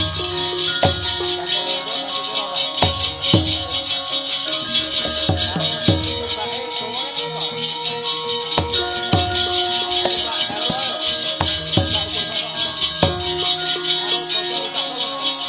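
Javanese gamelan ensemble playing: layered ringing metallophone tones with repeated low drum strokes that drop in pitch, over a dense, continuous metallic shimmer.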